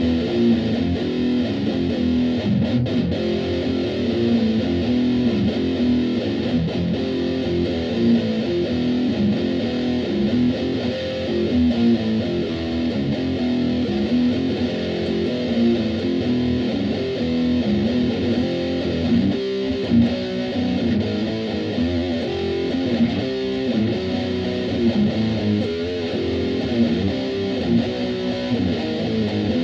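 Electric guitar strung with Ernie Ball Cobalt 10–52 gauge strings, played through a Line 6 amp with distortion, running through a repeating blues riff.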